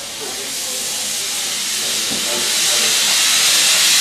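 Narrow-gauge steam locomotive letting off steam: a steady hiss that swells louder over a few seconds.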